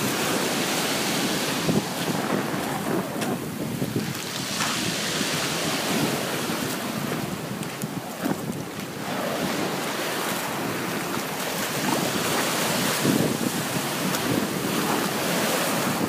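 Small surf washing onto the beach, swelling and receding, with wind gusting on the microphone.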